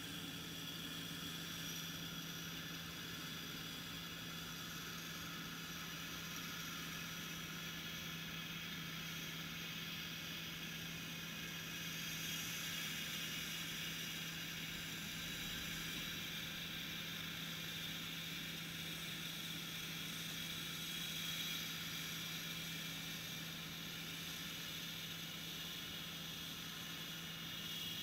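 Steady mechanical drone of a combine harvester: a constant low hum with a hiss and several high-pitched whines over it, unchanging throughout.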